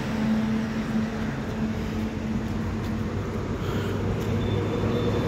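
Steady rumble of road traffic: vehicle engines and tyres going by, with a low engine drone that grows a little stronger in the second half.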